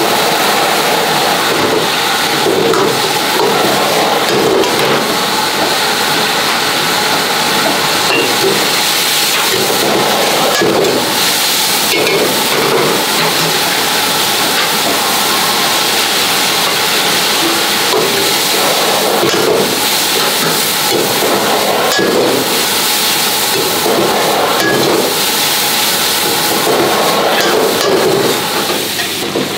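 Minced meat with chillies stir-frying hard in a wok over a high gas flame: steady sizzling and burner noise, with repeated scrapes and knocks of a metal spatula against the wok.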